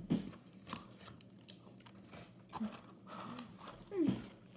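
A person biting into and chewing McDonald's food close to the microphone, with a few sharp crunchy bites. Near the end comes a short sound that falls in pitch, the loudest moment.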